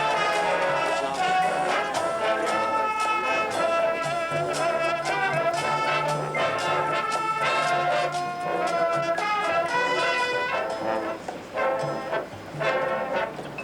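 Drum and bugle corps brass line playing a loud, full-chord passage with drums striking underneath; near the end the brass thins out and the drum hits stand out.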